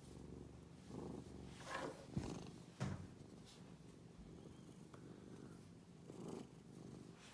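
White domestic cat purring steadily while it is petted, the purr swelling and easing with each breath. Two brief sharp knocks come about two and three seconds in.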